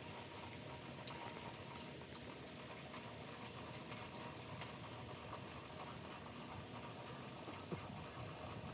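Hand-cranked height-adjustment jack of a Dominator basketball hoop being wound up to raise the backboard: faint, irregular light ticks over a steady quiet hiss.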